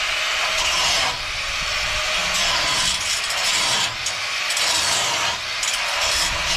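Cutoff wheel on a grinder cutting through steel rivets: a steady, high grinding hiss that dips briefly about once a second as the wheel bites and eases off.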